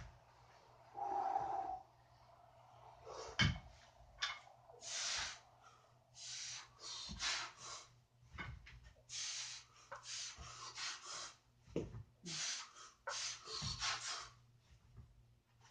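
A man's heavy, forceful breathing under strain: short, hard exhalations and inhalations roughly once a second through a set of heavy one-arm overhead dumbbell presses, with a few dull thumps.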